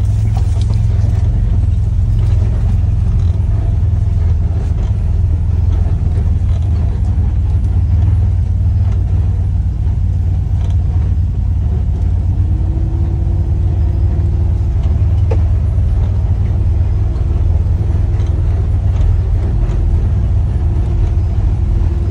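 Side-by-side UTV engine running steadily while driving, a loud, even low drone. A faint steady whine comes in about halfway through.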